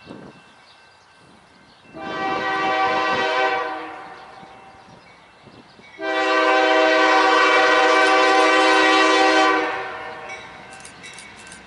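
Locomotive multi-chime air horn sounding two blasts, a shorter one and then a longer, louder one. A run of even, rapid clicks follows near the end.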